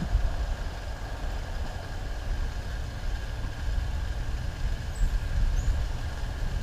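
Steady low rumble of wind on the microphone, with two faint high chirps about five seconds in.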